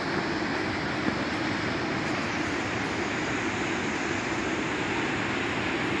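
Kegon Falls pouring into its partly frozen basin: a steady, unbroken rush of falling water. The winter flow is low.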